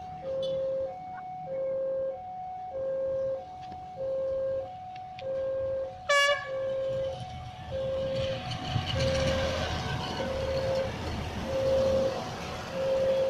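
Railway level crossing warning signal sounding, an electronic two-tone ding-dong repeating a little faster than once a second. A short horn toot sounds about six seconds in. From about eight seconds a rumbling noise builds as a train approaches.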